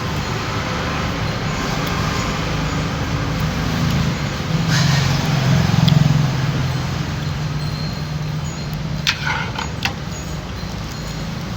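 Road traffic running steadily, with a vehicle's engine growing louder as it passes around the middle, then a few short sharp clicks near the end.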